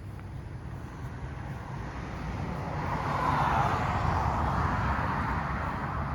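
A passing vehicle: a rushing noise that swells about three seconds in and slowly fades, over a steady low hum.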